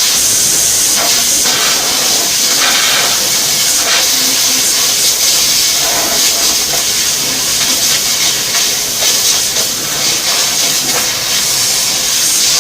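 1200 W fiber laser cutter cutting 0.6 mm silver sheet: a loud, steady hiss of assist gas jetting from the cutting head, with a few faint ticks.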